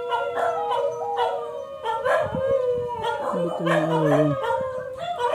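Several dogs howling together: long, wavering howls at different pitches overlapping one another.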